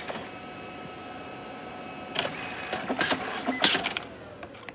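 DNP DS620 dye-sublimation photo printer running through a print with a steady mechanical hum. It clicks and clacks sharply a few times about two to four seconds in, then its motor whine falls in pitch and fades near the end.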